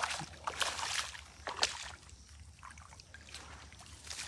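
Shallow paddy water splashing and sloshing as an eel thrashing on a multi-pronged fishing spear is lifted out of it: several short splashes in the first two seconds, then quieter trickling.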